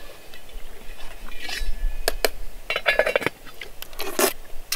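Metal camp cookware being handled: a pot, its lid and a spoon clinking and knocking against each other in a string of sharp clinks, some ringing briefly.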